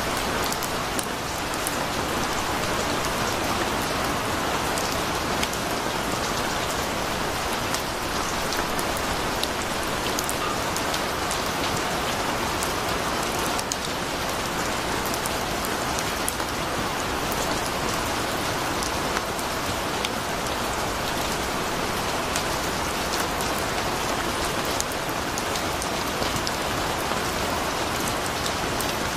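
Heavy monsoon downpour: steady rain falling on trees and flooded ground, with many small sharp drop ticks.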